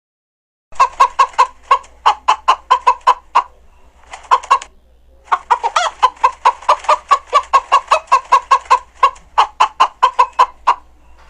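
Chickens clucking in fast runs of short calls, about five a second, starting just under a second in, with a couple of brief pauses.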